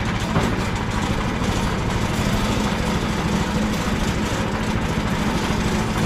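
Harbor Freight portable band sawmill's gas engine running steadily.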